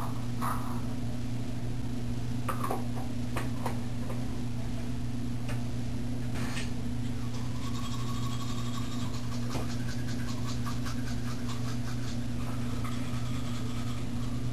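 Toothbrush scrubbing teeth in quick, even strokes from about eight seconds in, over a steady low hum, with a few faint clicks before it.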